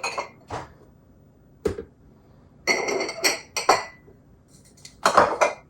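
Drinking cups and glassware knocking and clinking together as they are picked up and set down, a few separate knocks, then a cluster near the middle where they ring briefly, and another clink near the end.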